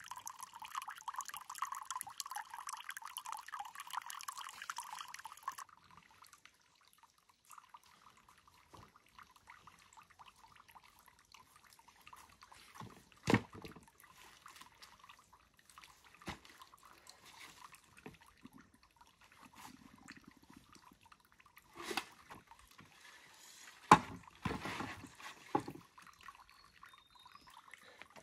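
Water running from the end of a bamboo pipe and splashing into a plastic bucket of water, cutting off after about five and a half seconds. After that comes a fainter trickle of water with a few sharp knocks, the loudest about three quarters of the way through.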